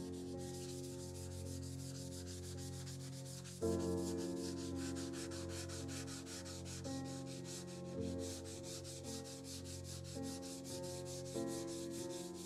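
Steel plate of a rusty Disston hand saw being rubbed by hand with 120-grit sandpaper wetted with denatured alcohol to strip the rust. The strokes are quick, even and back-and-forth, each one a short scratchy rasp.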